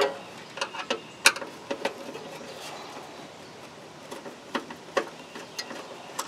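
Screwdriver working a small ground screw loose from a smoker's sheet-metal control housing: a scattering of small, irregular clicks and ticks.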